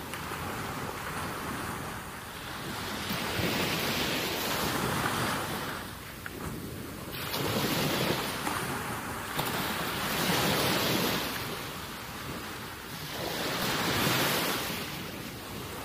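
Rushing noise of wind and lapping sea water by the shore, swelling and fading every three to four seconds.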